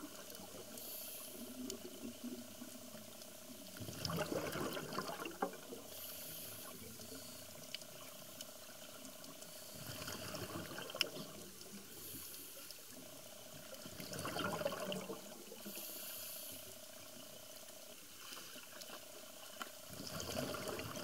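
Scuba regulator breathing underwater: a short hiss on each inhale, then a louder gurgle of exhaled bubbles, repeating about every five seconds.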